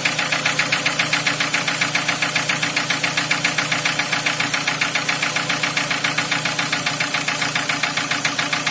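Nissan QG18DE 1.8-litre four-cylinder petrol engine idling cold, with a fast, even knock running through it at every turn; the owner locates the knock around the fourth cylinder.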